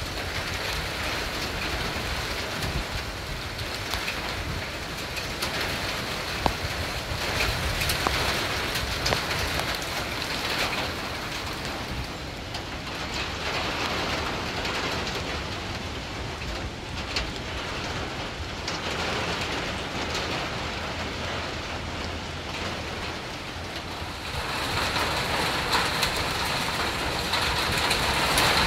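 Steady rain falling, with scattered sharp drops ticking on a nearby surface. The rain grows louder about 25 seconds in.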